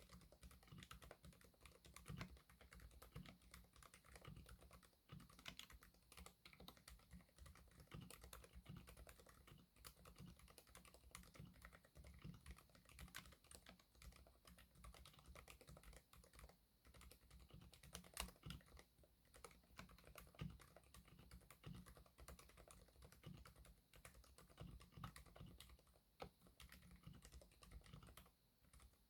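Continuous quiet typing on a mechanical keyboard fitted with Keychron K Pro silent red linear switches, in an acrylic case with OEM-profile side-printed keycaps: a dense, irregular run of soft keystrokes.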